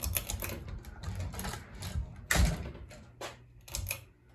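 Damaged hugger-style ceiling fan knocking and rattling as it is battered and handled: a string of irregular knocks and clicks, the loudest about two and a half seconds in.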